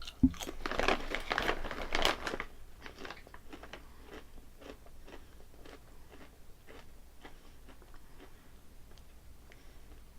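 Close-up crunching of Calbee Honey Butter potato chips being bitten and chewed: loud and dense for the first two seconds or so, then a softer, steady chewing crunch, about three crunches a second.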